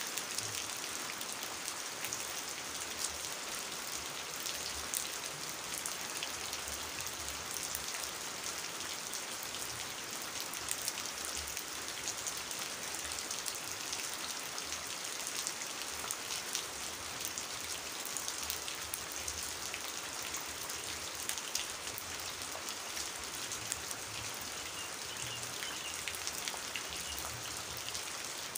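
Steady rain falling onto a puddle of standing water and onto wet leaves, a constant hiss full of small drop splashes.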